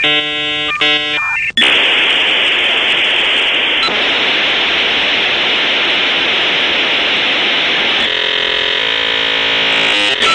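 Dial-up modem handshake while connecting: a short burst of stacked steady tones, then about a second and a half in a loud steady hiss. Near the end, a set of steady tones sounds over the hiss.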